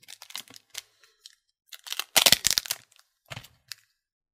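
Foil wrapper of a Tim Hortons Upper Deck hockey card pack crinkling and being torn open by hand. Light crackles lead up to one loud rip about two seconds in, followed by a few softer crackles.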